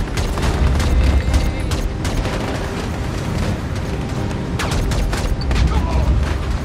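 Film battle sound effects: rapid bursts of gunfire over a deep, steady rumble. The shots come thickest in the first second and a half and again about five seconds in.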